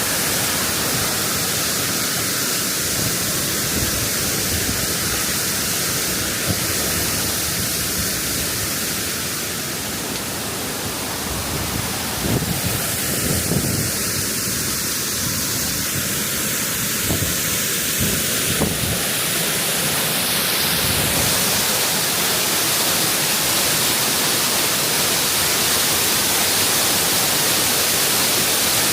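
Waterfall rushing, a steady hiss of falling water, with a few soft low thumps around the middle.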